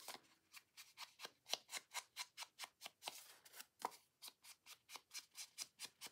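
Faint, rapid scraping strokes on the edge of card stock, about five a second: the paper edges being distressed with a hand tool.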